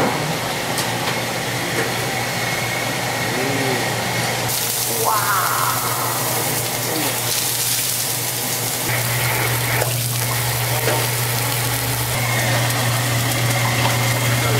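Steady rushing hiss with a low motor hum underneath, from a gas broiler's burners and a grill's smoke-extraction fan running. The hum grows stronger about nine seconds in.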